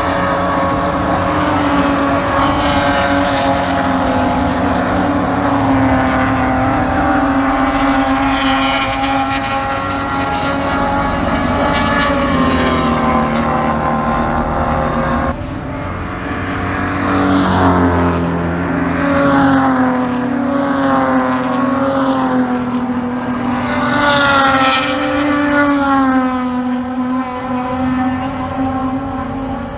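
BMW E30 PRO3 race car's straight-six engine at racing speed, its pitch climbing under acceleration and dropping on lifts and downshifts several times. Near the middle the sound changes abruptly, and a few seconds before the end the revs fall away in a series of downshifts.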